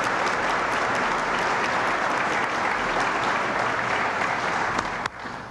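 Audience applauding steadily, then dropping off sharply about five seconds in.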